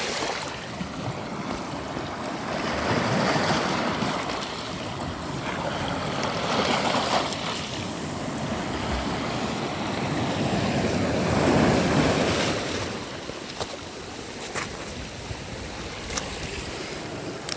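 Sea waves breaking and washing up a sandy beach, the surf swelling three times about four seconds apart, with a few faint ticks near the end.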